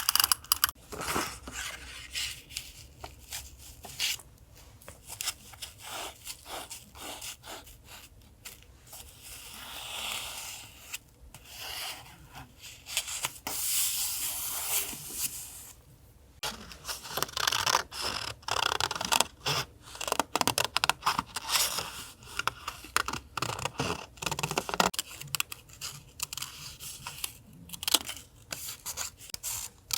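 Paper and stickers being handled, torn and rubbed down for a collage, with many short crinkles and taps. Longer stretches of rubbing or tearing come about ten seconds in and again around fourteen seconds.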